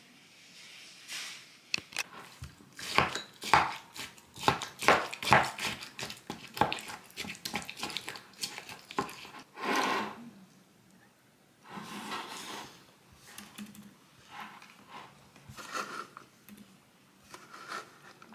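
A spoon stirring yogurt and granola in a glass mug: a fast run of clinks and scrapes against the glass for several seconds, then a few scattered ones further apart.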